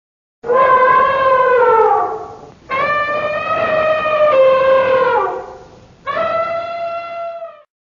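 Three long, loud, pitched animal calls in a row, each held level and then dropping in pitch at the end.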